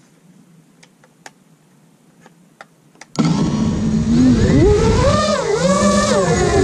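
A few faint clicks over a low hiss. About three seconds in, the brushless motors of an iFlight Nazgul5 V2 5-inch FPV quadcopter spin up suddenly to a loud whine whose pitch rises and falls with the throttle as it lifts off.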